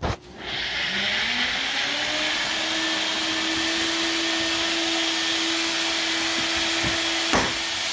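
An electric fan motor switches on, rising in pitch as it spins up over about two seconds, then runs steadily with a loud rush of air. A sharp knock comes near the end.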